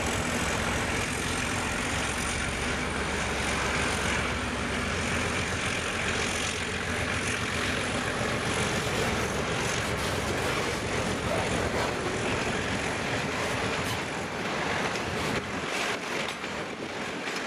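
Diesel locomotives of a loaded limestone train, including 830-class Alco unit 843, running under power with a low engine drone that fades over the first few seconds as they move away. The hopper wagons then roll past close by with a steady rumble, scattered wheel clicks and a faint high whine.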